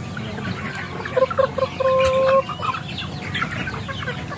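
A flock of young chickens clucking and peeping as they peck at feed, with one longer held call about two seconds in.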